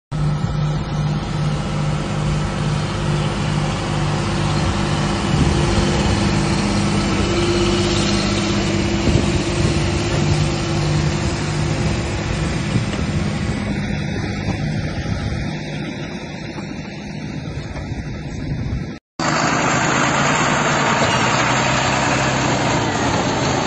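Large farm tractor's diesel engine running steadily under load while towing an armoured vehicle, with a brief break about nineteen seconds in before another stretch of engine noise.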